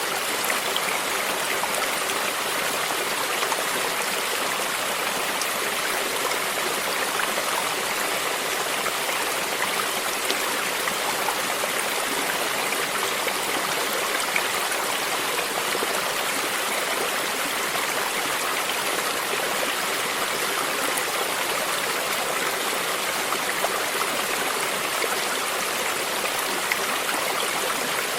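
Stream water flowing steadily over rocks, an even rushing and babbling.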